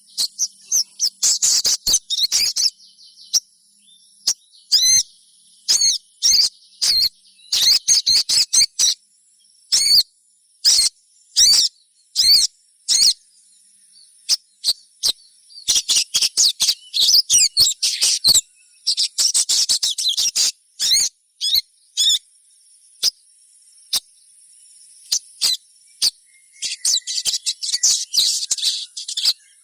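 Little spiderhunter (sogon) chirping: clusters of rapid, high, sharp chirps, some spaced and some packed into dense runs, the calls of young birds used as a lure to set other sogon calling. A steady high-pitched whine sits behind the calls.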